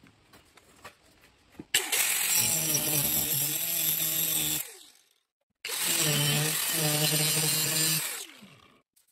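Angle grinder cutting into the steel of an old double-bit axehead along a marked outline. It runs in two stretches of about three seconds each, breaking off abruptly in between, and winds down with a falling pitch near the end.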